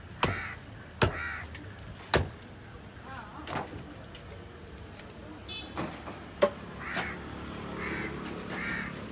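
A heavy knife chopping fish on a cutting block: sharp strikes about a second apart, loudest in the first two seconds and again past the middle. Crows caw repeatedly over it.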